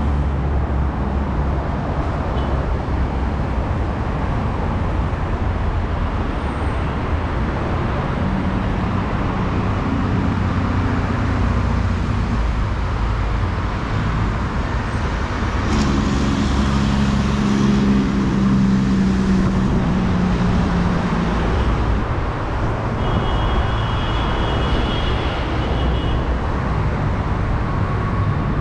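Steady road traffic on a multi-lane highway below, engines and tyres of passing cars and trucks running continuously. A louder vehicle passes around the middle.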